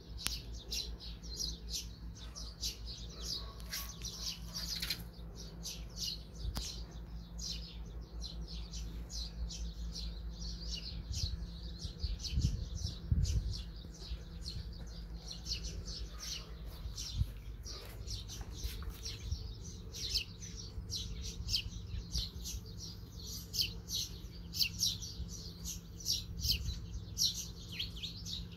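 Small birds chirping busily, many short high chirps in an irregular stream, over a low steady rumble. A brief louder low bump about twelve seconds in.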